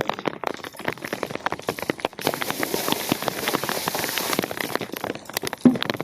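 Rain pattering in dense, irregular taps, with a steady hiss from about two seconds in until about four seconds in.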